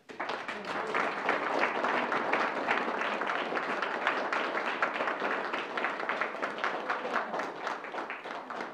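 A small audience applauding: dense, steady hand-clapping that starts all at once and thins out near the end.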